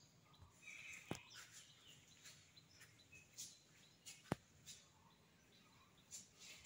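Near silence: faint room tone with two sharp clicks and a few faint, short, high chirps.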